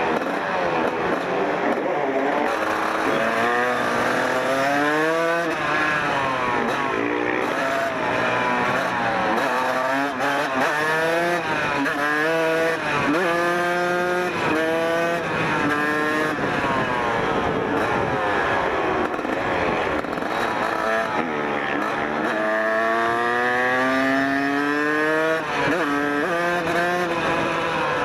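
1994 Kawasaki KX 125's single-cylinder two-stroke engine under way, accelerating hard. Its pitch climbs and drops back again and again as it is ridden up through the gears.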